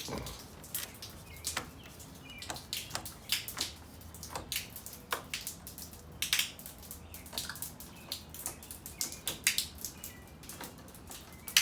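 Irregular sharp clicks and taps, several a second, from work on a metal rain-gutter downspout, with a few faint bird chirps.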